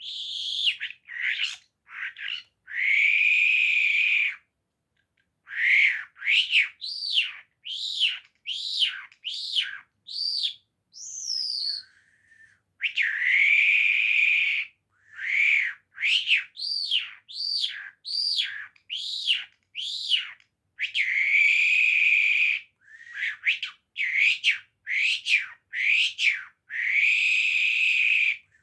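A songbird singing in phrases: runs of quick sweeping chirps broken by long, harsh buzzy notes, each about a second and a half long, four times.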